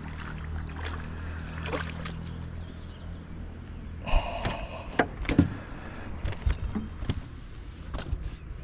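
A hooked crappie splashing at the water's surface as it is reeled in, then swung aboard and flopping on a boat's carpeted deck, with a string of sharp knocks and thumps from about halfway through. A steady low hum runs underneath.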